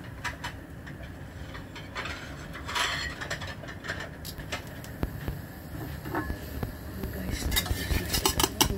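Metal spoon clinking and scraping against a stainless steel pan as it is worked under a French toast omelette, a dense run of clicks near the end, with scattered single clicks earlier over a low steady hum.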